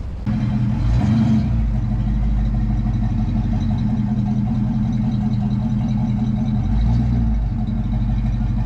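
A truck engine running steadily close by, with the revs swelling briefly about a second in and again around seven seconds.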